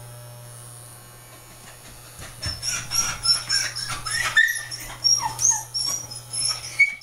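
A frightened miniature Australian shepherd whimpering and yelping in high, squeaky cries from about two seconds in, while electric pet clippers held to her run with a steady low hum. She is fighting the grooming.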